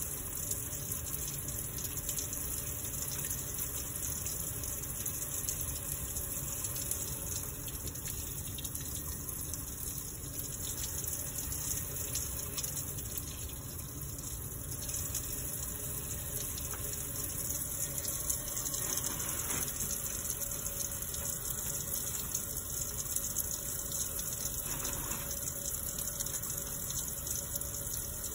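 Tap water running steadily from a faucet into a deep utility sink, with hands being washed under the stream.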